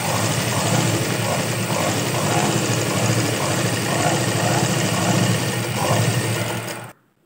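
Household straight-stitch sewing machine running steadily, sewing a seam through cloth, then cutting off abruptly near the end. It is stitching a test seam after its tension plate, needle and bobbin case were adjusted to cure skipped stitches.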